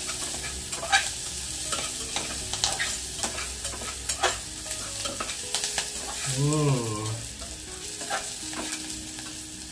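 Spices and vegetables frying in ghee in an aluminium pressure cooker, with a steady sizzle. A thin steel utensil stirs and scrapes them, clicking against the pot at irregular moments.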